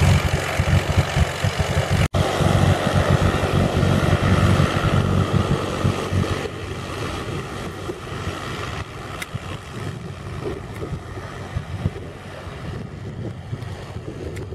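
Single-engine light propeller aircraft's piston engine running as the plane rolls along the ground. It is loud at first and fades after about six seconds as the plane moves away, with wind buffeting the microphone.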